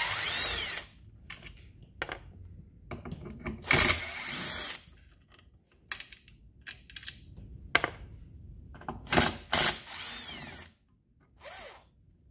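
Cordless impact driver spinning out the ignition coil's mounting screws on a chainsaw, running in three bursts of about a second each, with a shorter one near the end. Small clicks and knocks of the tool and screws being handled come between the bursts.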